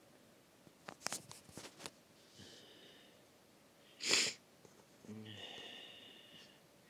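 Clicks and rustling of a phone being handled against socks and fabric, then about four seconds in a single short, sharp burst of breath, the loudest sound here. A quieter drawn-out sound follows near the end.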